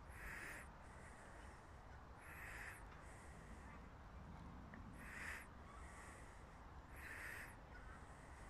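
A crow cawing faintly, four short caws about two seconds apart.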